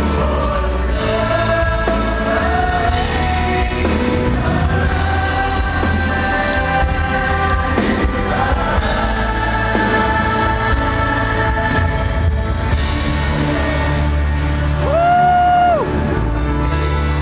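Live Christian pop-rock band playing, with male voices singing a melody over bass, drums and keyboards in an arena. A long held sung note near the end is the loudest moment.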